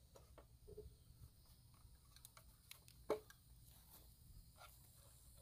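Near silence over a faint low hum, with a few faint clicks and one soft knock about three seconds in: the plastic engine cover of a small outboard being handled and lifted off.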